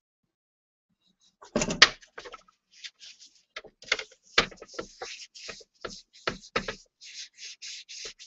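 A ceramic bowl knocks against a wooden tray about a second and a half in as it is set down upside down. Then a cotton wad rubs over the bowl's foot in many short rubbing strokes, with a few light knocks as the bowl shifts.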